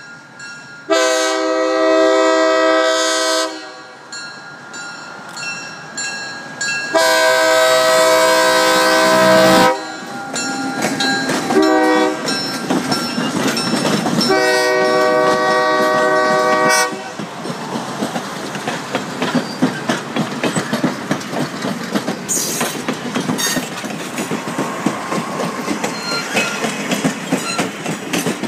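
Napa Valley Wine Train's ALCO FPA-4 diesel locomotive sounding its air horn in the grade-crossing pattern, long, long, short, long, as it approaches and passes. The passenger cars then roll by with a steady rumble and clickety-clack of wheels over rail joints.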